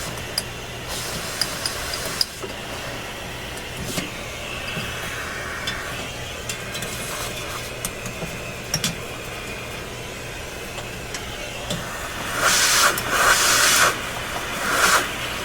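Vacuum cleaner running steadily as dust is sucked out of an old radio chassis, with scattered small clicks and a louder rush of air twice near the end.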